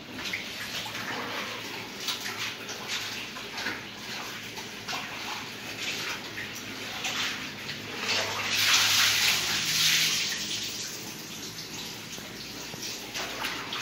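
Several cats eating wet food from metal bowls: a steady run of quick, wet chewing and lapping clicks. About eight seconds in, a louder rushing noise swells for roughly two seconds, then fades.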